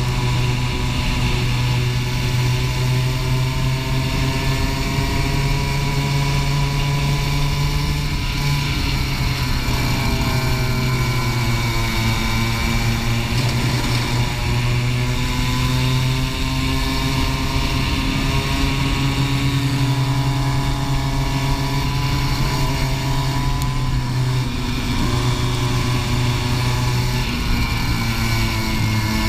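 Racing kart engine running hard, heard from on board, its pitch dipping and climbing again several times as the kart slows for corners and accelerates out of them.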